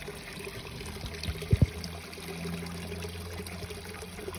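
Pond water trickling and pouring steadily, as from a koi pond's waterfall or filter return, over a low steady hum. Two short low thumps about one and a half seconds in.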